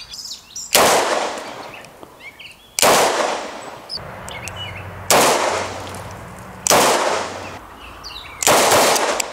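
Smith & Wesson 686 .357 Magnum six-shot revolver fired five times, slow and deliberate, about two seconds apart. Each shot is a loud crack followed by an echo that trails off.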